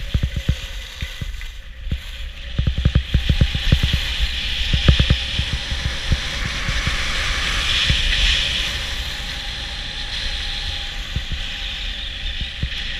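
Skis sliding and carving on packed snow with wind buffeting the microphone: a low rumble and a steady hiss, with a run of sharp knocks and clicks in the first half. The hiss swells about eight seconds in.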